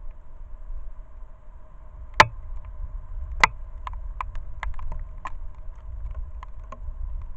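Trail camera recording outdoors: a steady low rumble and faint electronic hum from the camera, with two loud sharp snaps a little over a second apart, then a quicker scatter of small clicks and cracks.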